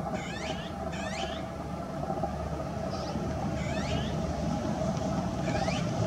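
Azure-winged magpie calling: four calls that fall steeply in pitch, two in quick succession near the start and two more spaced out later, with a short high note between them. A steady low rumble runs underneath and grows louder toward the end.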